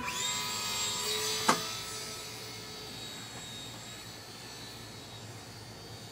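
Electric motor and propeller of a ParkZone Champ micro RC airplane whining at high throttle as it is hand-launched, with a sharp click about a second and a half in. The whine then fades steadily as the plane flies away.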